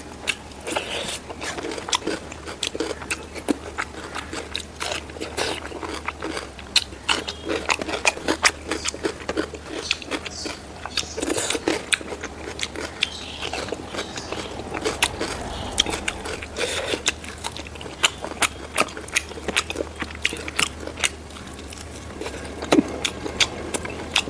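Close-up eating sounds: chewing pork ribs curry and rice, with wet smacks, crunches and frequent sharp clicks, irregular and continuous.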